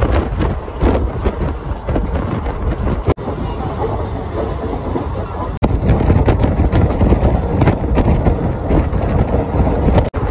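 Passenger train running along the track, the steady rumble of wheels on rails and wind, heard from aboard a coach. The sound breaks off in three very short gaps, about three, five and a half and ten seconds in.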